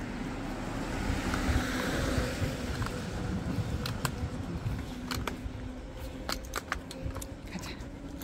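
Low rumble of road traffic alongside, with a faint steady hum. From about four seconds in, a scatter of short sharp clicks.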